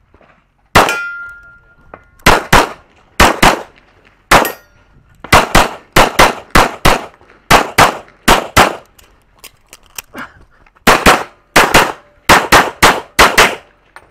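Pistol fired in quick pairs of shots during a USPSA stage run, about two dozen sharp shots in all. The pairs come in runs, with short pauses of about a second while the shooter moves between targets.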